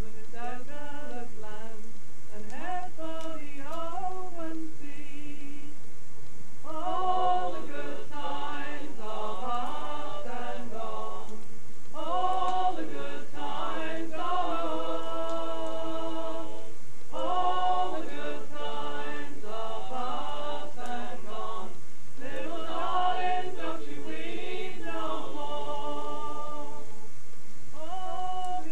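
Several voices singing together in long phrases, the sound growing fuller from about seven seconds in.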